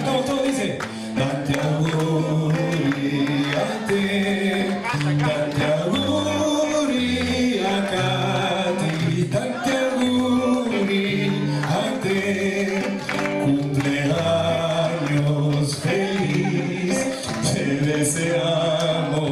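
A group of men and women singing together, holding long notes.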